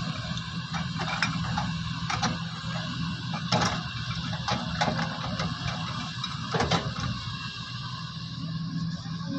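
Excavator's diesel engine running steadily, with irregular sharp clanks and knocks from the digging work.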